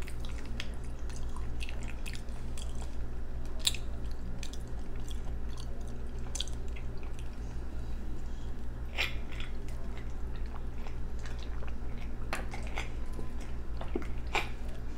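Close-miked drinking from a plastic sports-drink bottle: scattered swallows and wet mouth clicks over a steady low hum.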